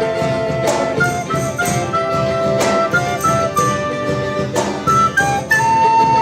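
A band playing an instrumental passage: a lead melody in held notes over drums, with cymbal strokes about once a second.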